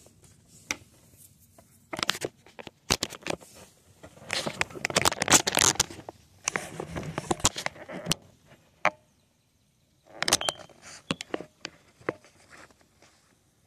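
Close crackling, rustling and clicking handling noise in several bursts, with quiet gaps between.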